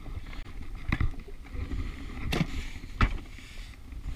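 Low steady rumble of wind and water around an anchored jet ski, broken by three sharp knocks about one, two and a half and three seconds in, the last the loudest.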